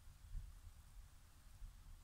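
Near silence: faint outdoor ambience with a low, uneven rumble.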